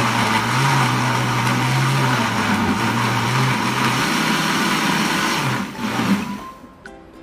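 Electric kitchen blender running at full speed, grinding the kimchi seasoning ingredients with water. The motor hum wavers in pitch, dips briefly and cuts off about six seconds in.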